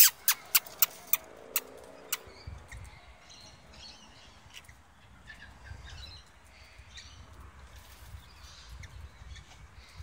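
A quick run of about seven sharp clicks in the first two seconds, then faint, scattered bird chirps and calls over a low rumble.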